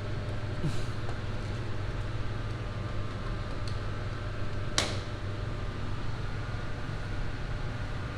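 Steady low electrical hum of plant-room equipment, with faint steady higher tones above it. A single sharp click sounds about five seconds in.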